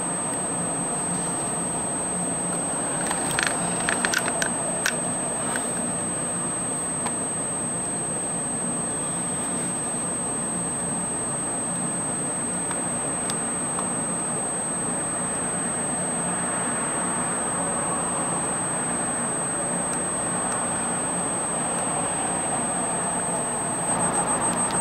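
A steady high-pitched electronic whine, most likely from the night-vision gear's electronics, over a constant background noise. A few faint clicks come about three to five seconds in.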